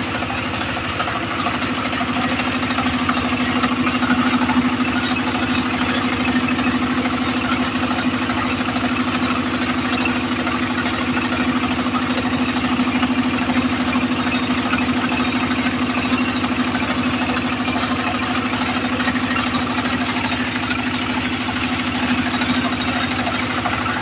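Engine of a home-built circular sawmill running steadily with an even hum that does not change.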